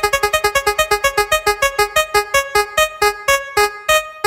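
Spinning prize-wheel sound effect: a run of short electric-piano-like notes that slows steadily from about eight notes a second to about three, as the wheel coasts toward a stop.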